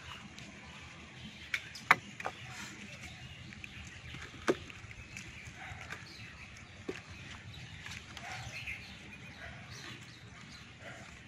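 A few sharp knocks from a plastic bucket being handled as small fish are put into it: two close together about two seconds in, the loudest, then single ones at about four and a half and seven seconds.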